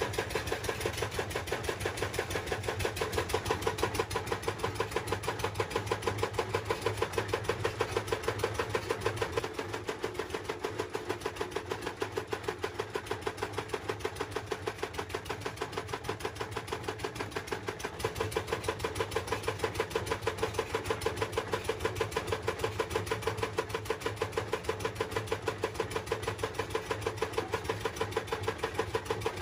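A small engine-driven machine running steadily with a fast, even pulsing beat.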